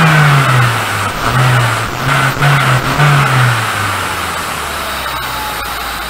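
Toyota Corona engine running and revved in a series of quick throttle blips, each rev falling back, with the throttle worked by hand at the throttle body. About four seconds in it settles to a lower, quieter steady idle.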